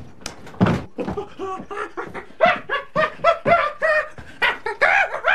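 A man imitating a chimpanzee with rapid, short hooting calls that grow louder, after two thumps near the start.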